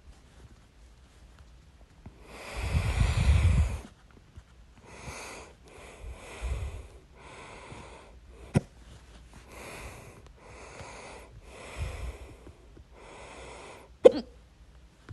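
A person hiccupping: two short sharp hiccups, one about halfway through and a louder one near the end, between heavy breaths taken about once a second, with one long loud breath out near the start.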